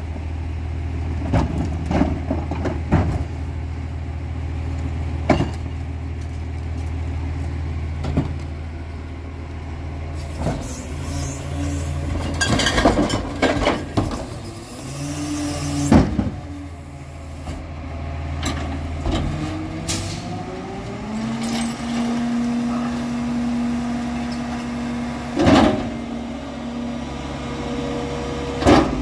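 Peterbilt 348 garbage truck's diesel engine running steadily at idle, with sharp clanks and knocks of plastic trash carts against the Heil Formula 5000 rear loader's cart tipper and hopper. About halfway there is a hiss. From about two-thirds of the way in, the engine revs up and a hydraulic whine rises and then holds steady as the rear loader's packer blade cycles to compact the load.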